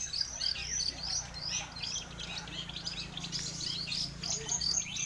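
Long-tailed shrikes (cendet) singing a dense, fast chattering string of high chirps and short whistled sweeps, with no pauses, over a faint low hum.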